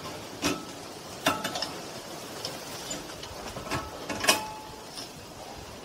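Metal clicks and scrapes of a screwdriver prying the steel pad retaining spring off a Ford Focus Mk3 rear brake caliper. There are several sharp clinks, some with a brief ring, and the loudest comes a little past four seconds in.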